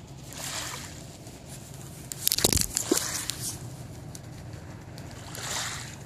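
Small waves lapping and sloshing at the water's edge on a sandy shore, two soft swells of wash about five seconds apart. Around two and a half seconds in there is a louder burst of crackling splash with a low thump.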